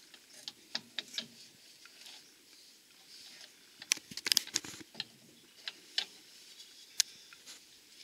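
Plastic soda bottle of bled fuel oil being handled: scattered light clicks and crinkles, with a quick flurry of them about four seconds in.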